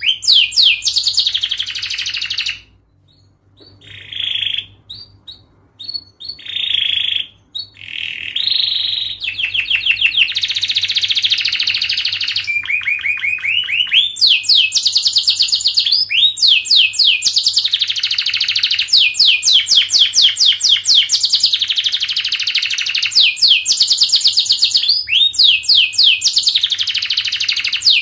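Domestic canary singing long, fast, tightly packed trills of rapid high notes. It pauses briefly a few seconds in and sings a few short phrases, then carries on in unbroken trills.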